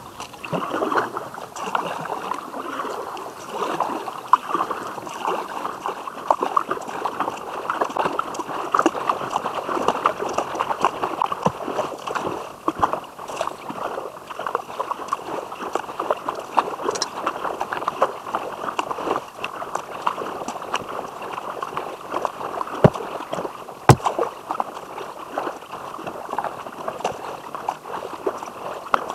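Kayak paddling: water splashing and trickling around the paddle blades and hull, with many small drips and clicks. Two sharp knocks come about a second apart roughly three quarters of the way through.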